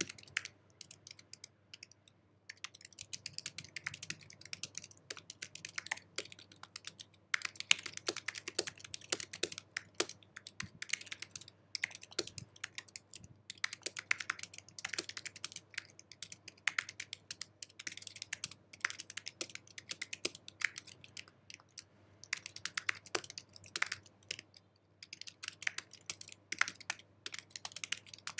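Fast typing on an Apple computer keyboard: a quick, uneven stream of key clicks, broken by a few short pauses.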